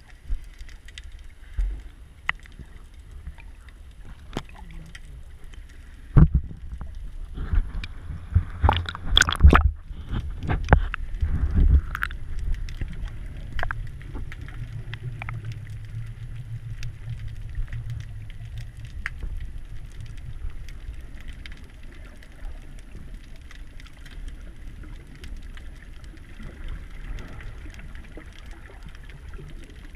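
Underwater noise picked up by a submerged camera: a steady, muffled low rumble of water with scattered clicks and crackles, and a run of loud knocks and gurgling thumps from about six to twelve seconds in.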